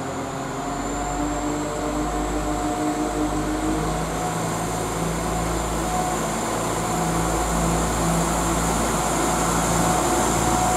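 Two coupled Class 172 Turbostar diesel multiple units pulling away under power, their underfloor diesel engines running with a steady note. The note shifts lower about four seconds in, and the sound grows gradually louder as the units draw past.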